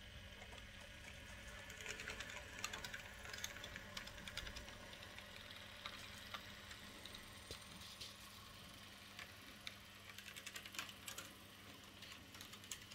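H0 model train (a Piko class 110 electric locomotive hauling coaches) running on model railway track: faint, irregular clicking of wheels over the rail joints, thickening about two seconds in and again near the end.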